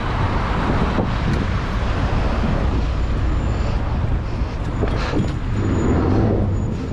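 Road traffic heard from a moving bicycle alongside lines of cars, with a steady rumble of wind on the microphone.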